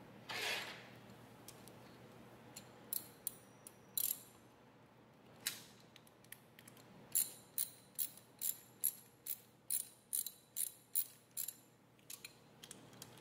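Socket ratchet wrench clicking in a steady run of about two and a half sharp metallic clicks a second, tightening the bolt that clamps the welding cable into a stinger electrode holder. A brief scrape of handling comes about half a second in, and a few scattered clicks from the tool and the holder come before the run.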